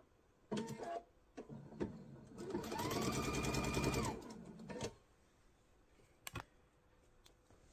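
Electric sewing machine stitching patchwork: a short burst about half a second in, a couple of clicks, then a run of about two seconds in which the motor rises in pitch, holds with rapid needle strokes and winds down. Two more clicks near the end.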